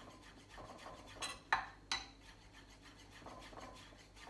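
Kitchen knife cutting sage leaves finely on a wooden chopping board: three sharp knocks of the blade on the board between about one and two seconds in, with softer cutting sounds around them.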